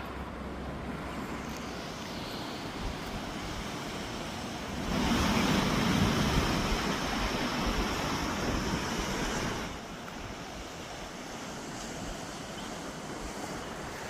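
Steady rushing outdoor noise of sea surf and wind on the microphone, with a louder rush lasting about five seconds in the middle that starts and stops suddenly.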